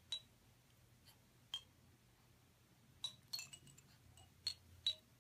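Scattered light clinks of small hard objects, each with a brief high ring, about eight in all, the loudest near the end.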